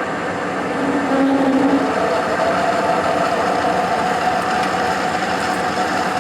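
Hendey lathe running at reduced speed while a half-inch stubby drill cuts into a steel workpiece (believed to be 1045 steel): a steady machine hum, with a faint pitched cutting tone that sets in about a second in and steadies a little higher after that.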